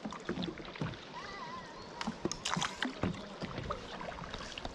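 Paddles dipping and splashing in lake water around stand-up paddleboards and kayaks, with irregular small splashes, drips and light knocks.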